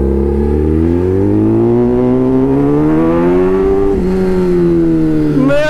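Kawasaki ZX-10R's inline-four engine pulling as the bike accelerates, its pitch climbing steadily for about three seconds, with a brief dip about four seconds in, then easing slightly lower.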